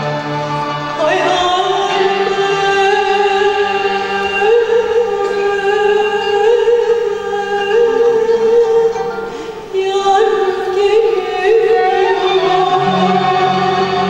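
Live Turkish classical music (Türk sanat müziği): a woman sings a solo line into a microphone, with wavering, ornamented notes, over violin accompaniment. Her voice dips briefly about two-thirds through, between phrases.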